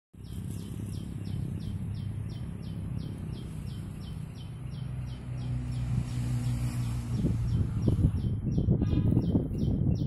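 A high chirp repeated very evenly, about three times a second, steady throughout. Beneath it a low rumble on the microphone grows louder and gustier over the last few seconds.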